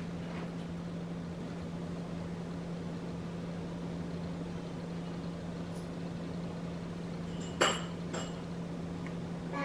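Quiet kitchen room tone with a steady low hum. Two light clicks come about seven and a half seconds in, as a cherry tomato on a pick is pressed into a plastic lunchbox.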